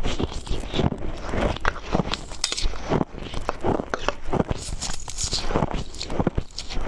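Mouthfuls of crushed ice being chewed close to the microphone: an irregular run of sharp, crisp crunches, several a second.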